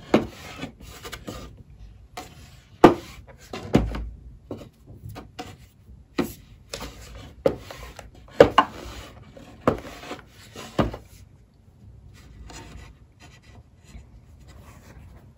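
Household steam iron sliding and rubbing over cotton fabric on a hard table top, with a series of sharp knocks as the iron is set down and shifted. After about eleven seconds the knocks stop and only faint rustling of fabric being smoothed by hand remains.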